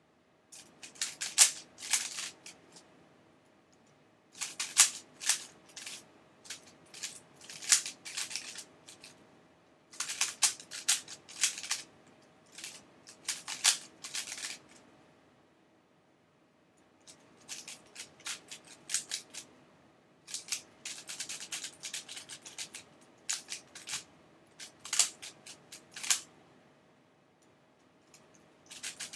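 Dayan Lunhui 3x3 speedcube being turned by hand through solving algorithms: rapid runs of plastic clicking and clacking as the layers turn, in bursts of a second or two with short pauses between and a longer pause near the middle. A faint steady hum sits underneath.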